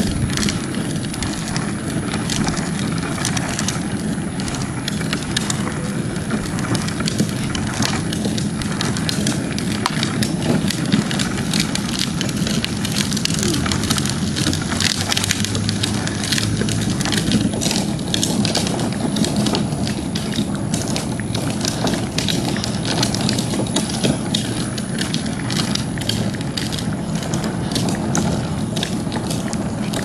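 Phone microphone rubbed and knocked as it is carried while walking, with footsteps and rustling: a continuous jumble of small clicks and bumps over a low rumble.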